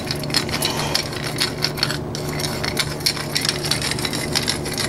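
Hand-turned pepper mill grinding black peppercorns: a rapid, irregular crackle of small clicks that keeps going.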